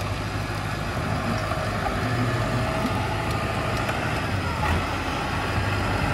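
Diesel engine of a Case tractor running steadily with a low drone as the front loader works a junked car.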